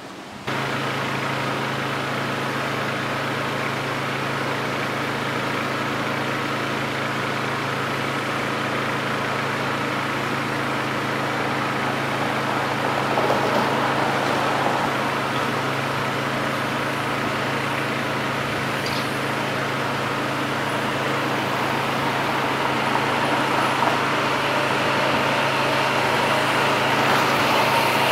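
Steady urban traffic ambience: a constant low engine hum under a wide wash of road noise. It starts abruptly about half a second in and swells slightly near the middle and again toward the end.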